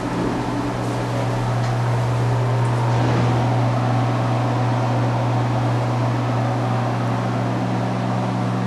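Bathroom exhaust fan running: a steady low hum with an even rushing hiss, growing slightly louder over the first few seconds.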